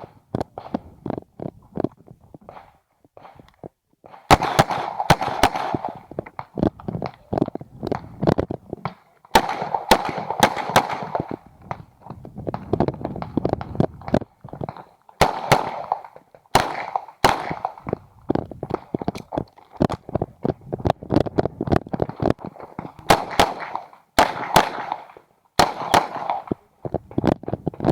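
Uzi Pro 9 mm semi-automatic pistol fired in rapid strings of shots through a practical-shooting stage, each string followed by ringing echo. There are pauses of a few seconds between strings.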